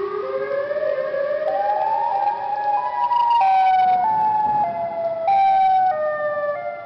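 Outdoor warning siren sounding a creepy wavering tone. Its pitch climbs in small steps for about three seconds, then steps back down, and it is loudest near the top of the climb.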